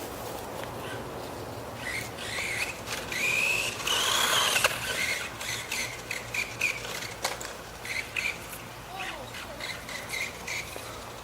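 Hosim 1/12 electric RC car's motor whining in short bursts as the throttle is worked, with a louder rising-then-falling whine and a rush of tyre-and-ground noise about four seconds in.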